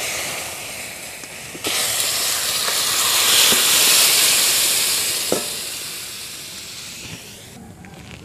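Hot oil in a wok sizzling loudly as taro-and-lentil curry with fish heads is poured onto a tempering of spices. The hiss swells suddenly about two seconds in and dies away near the end. A metal spatula knocks lightly a few times as it pushes the fish heads out of the steel bowl.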